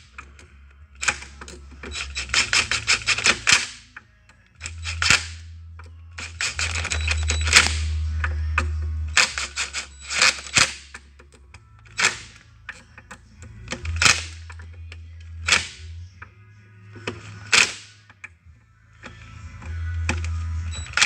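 Impact driver running in a series of short bursts, its hammer rattling rapidly as it tightens hardened T20 screws into the aluminium body of an overhead door closer. There are about eight bursts, separated by short pauses as it moves from screw to screw.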